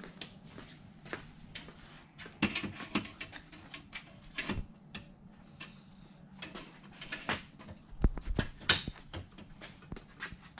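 Scattered metal clanks and knocks of hand tools being handled as a pry bar is fetched and brought to a bench vise, the sharpest knocks about eight seconds in, over a low steady hum.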